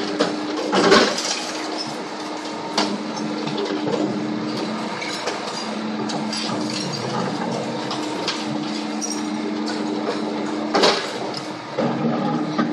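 Mercedes Actros 2632 garbage truck with a FAUN Rotopress body running with a steady hum while its rear lifter tips and lowers plastic wheelie bins. Sharp clanks of bins knocking against the lifter come about a second in, again around three seconds, and near the end.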